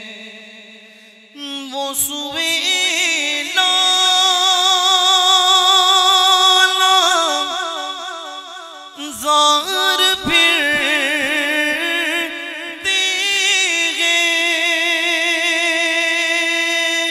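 A man's voice reciting a naat unaccompanied, in long, held, wavering melodic phrases into a microphone.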